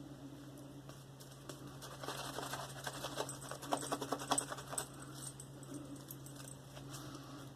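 Silvertip badger shaving brush working a wet lather of Mitchell's Wool Fat soap: soft, quick squishing and crackling of the bristles, busiest from about two to five seconds in.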